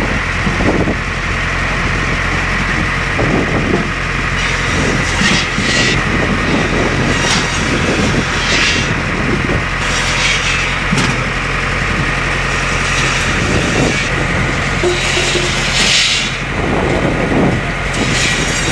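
Automatic log saw with a 28-inch carbide circular blade running steadily under engine power. Repeated short louder passes come every second or two as the blade works through the logs.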